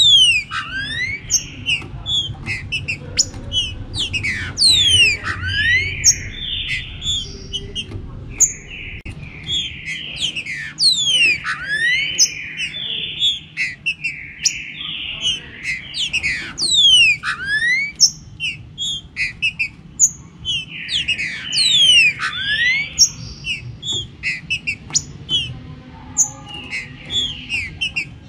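Several songbirds singing and calling over one another in a dense chorus of quick, high sweeping notes and chirps. A low rumble runs under the first eight seconds or so.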